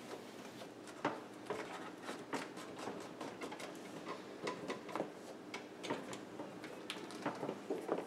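Hands pressing a new rubber door gasket into the groove around a dishwasher tub's opening: faint, irregular taps and clicks with light rubbing, one or two a second.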